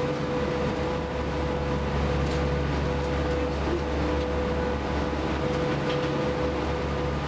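Engines of the M/S Söderarm passenger ferry running steadily under way: a constant low drone with a steady whine above it, along with the wash of water along the hull.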